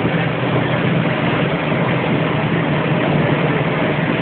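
Steady din of a bottling-line conveyor and its machinery running, with a low steady hum underneath.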